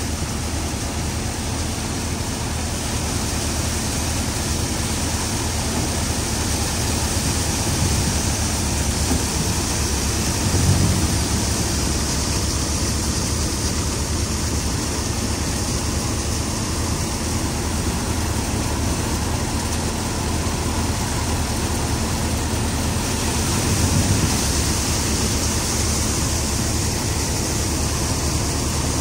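Tractor-driven threshing machine running steadily as chickpea plants are fed into it: a constant low drone with a hiss over it, swelling briefly about eleven seconds in and again near twenty-four seconds.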